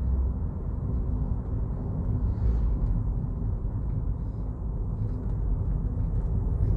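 Steady low rumble of a moving car's engine and tyres on the road, heard from inside the car's cabin.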